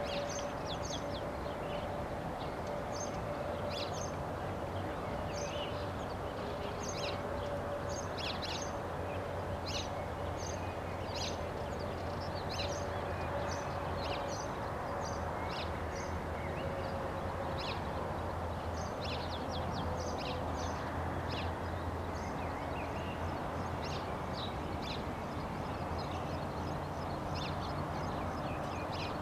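Many small birds chirping over a steady outdoor background hum. Under them a faint steady tone slowly drops in pitch and fades out about two-thirds of the way through.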